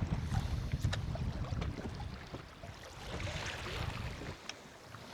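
Wind buffeting the microphone and water washing against the hull of a small boat drifting at sea, with a few light clicks.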